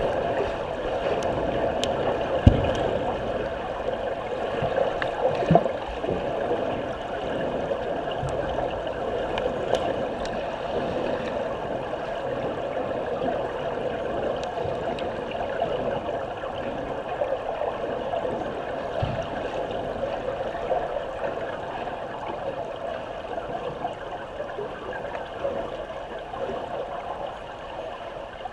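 Muffled underwater churning and bubbling of swimmers kicking and stroking in a pool, recorded from underwater, with a few dull thumps in the first six seconds. The sound slowly fades as the swimmers move away.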